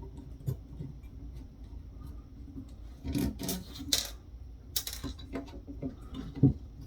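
Hands handling a circuit board and small parts during disassembly: low rubbing and scraping, with a few short clicks and knocks about halfway through.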